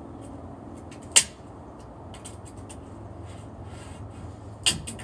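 Tech deck fingerboard clacking against a glass tabletop: one sharp clack about a second in and another near the end, with fainter ticks between, over a steady low hum.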